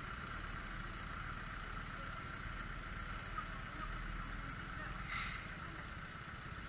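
Faint, steady street-traffic noise on a wet road, with a short hiss about five seconds in.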